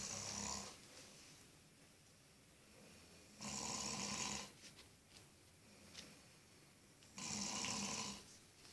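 A pig snoring in its sleep. One snore ends just after the start and two more follow about four seconds apart, each about a second long, with quiet breathing between them.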